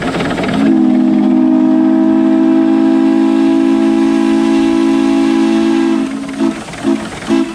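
Steam whistle on Shay No. 4, a geared steam locomotive, sounding several notes at once: one long blast of about five seconds, then three short toots near the end.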